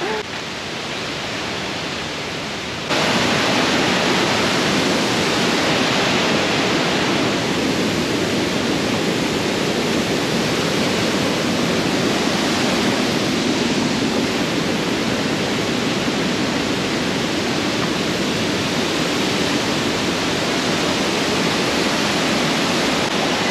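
Steady rushing of flowing water, as from a jungle stream or cascade. It jumps suddenly louder about three seconds in and then holds steady.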